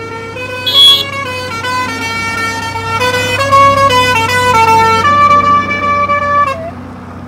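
A tune played in held notes that step up and down about twice a second, electronic-sounding, over a steady low hum. A short sharp blip about a second in is the loudest moment.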